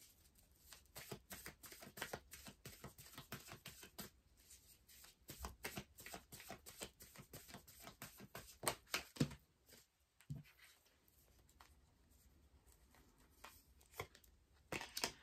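A deck of tarot cards being shuffled by hand: a quick run of card clicks for about the first nine seconds, then a lull, with a few more clicks near the end.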